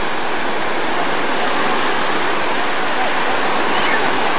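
Ocean surf breaking and washing up the sand: a steady rush of water.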